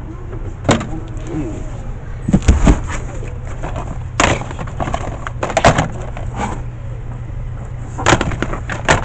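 Scattered knocks and clatters of hard objects, a few single and a few in quick clusters, over a steady low rumble.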